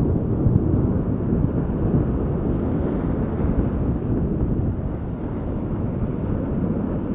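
Steady wind buffeting the microphone, with small waves breaking and washing up the sand underneath.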